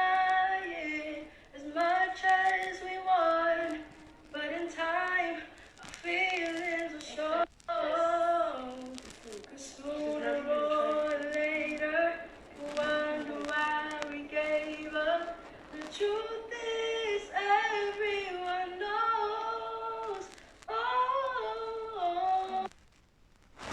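A young girl singing solo in phrases of a few seconds each, with no instrument heard behind her.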